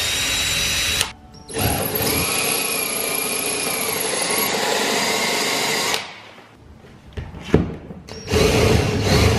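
Cordless drill drilling into the cab roof of a 2000 Ford F-150 in three runs: a short one, a long run of about four seconds with a slight wavering in pitch, then another near the end.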